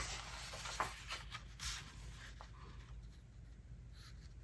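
A sheet of Astrobright 24 lb paper rustling and sliding as it is folded in half and pressed flat by hand to set the center crease. The rustle is faint and dies away after about two seconds.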